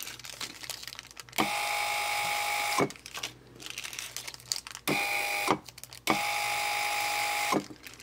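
Linear actuator's 12 V DC motor running in three short runs, a steady whine each time, the first and last about a second and a half long and the middle one brief. Each run starts and stops with a sharp click.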